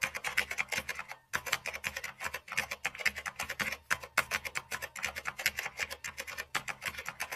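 Keyboard typing sound effect: rapid keystroke clicks, several a second, broken by brief pauses about a second in, near four seconds in and near six and a half seconds in.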